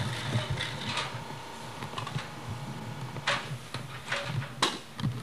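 A scattered run of irregular sharp clicks and knocks, about a dozen, over a low steady rumble.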